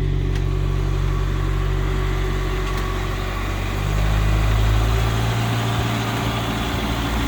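Rayco RG55 stump grinder's engine idling steadily just after a cold start, its note rising a little about four seconds in.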